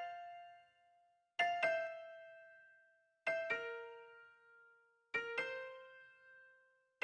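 Slow solo piano music: a pair of quick notes struck about every two seconds, each left to ring and fade away before the next.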